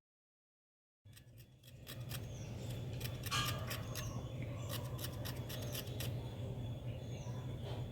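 Quick sharp snipping clicks in short runs, as herb leaves and ginger are cut, over a steady low hum; the sound starts about a second in.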